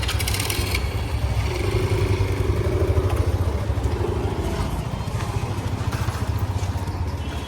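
A motorcycle engine running with a low, steady pulse, getting louder about three seconds in and then easing off. A short hiss sounds at the very start.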